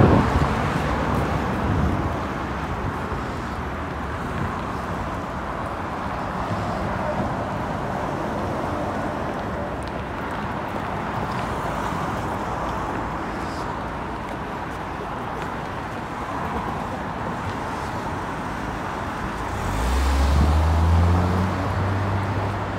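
Steady city street traffic noise, with a low rumble in the first two seconds and a nearby vehicle's engine hum that swells about twenty seconds in and fades near the end.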